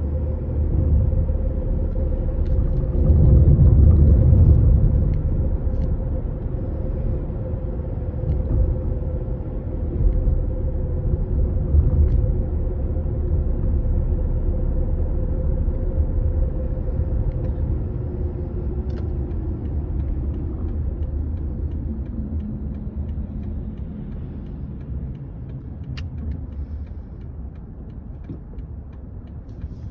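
Toyota Estima ACR55W running, a steady rumble with a few faint clicks now and then. This is the abnormal noise of a loosened No.2 steering intermediate shaft.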